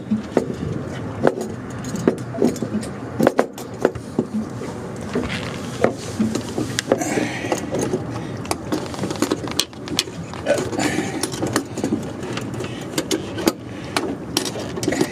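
Scattered clicks and knocks of a pump-out hose's camlock coupling being pushed onto a deck waste fitting and its cam lever arms clamped shut, with hose and fitting handling noise.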